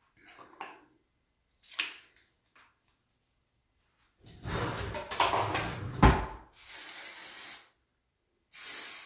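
Handling and rubbing noise with one loud thump, then an aerosol hairspray can hissing in two bursts: one about a second long, and a shorter one near the end.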